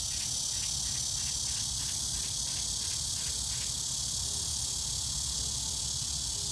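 A chorus of insects singing steadily in a high, hissing drone. For the first three and a half seconds another insect calls in quick pulses, about four a second, over a low rumble.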